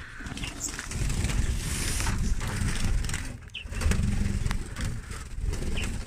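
Low rumbling and rubbing noise on the microphone, loudest in two long stretches, with a few short high chirps from small birds.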